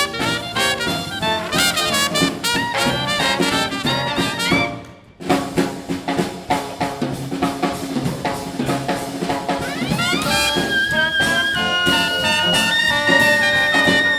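Live Dixieland jazz band playing, with trumpet and trombone over a drum kit. The music cuts off briefly about five seconds in and then starts again, ending in long held horn notes.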